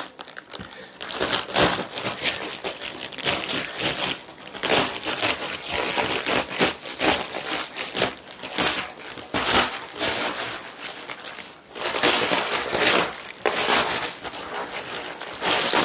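Plastic wrapping of a rolled foam mattress topper crinkling and rustling as it is cut open and pulled at by hand, a dense irregular crackle with brief lulls about a second in and near the twelve-second mark.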